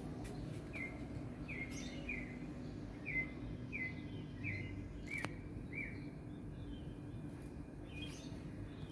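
A bird repeats short, falling chirps, about eight in a row over five seconds, over a steady low hum of background noise. A single sharp click comes about five seconds in.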